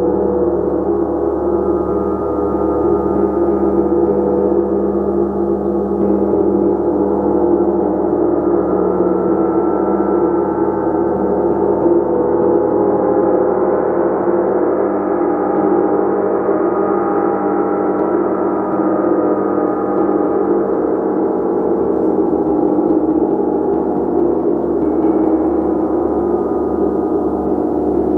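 Gong played as a continuous sustained wash, with many overlapping ringing tones held at a steady level and no single strike standing out.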